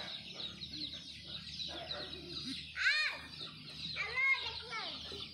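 Chickens clucking, with short repeated calls; the loudest come about three seconds in and again a second or so later.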